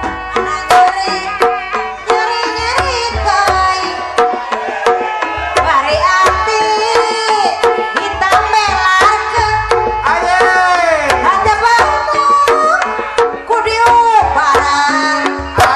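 Live Sundanese ibing dance music. Kendang hand drums play quick, sharp strokes with deep bass thumps, under a melody that slides up and down in pitch.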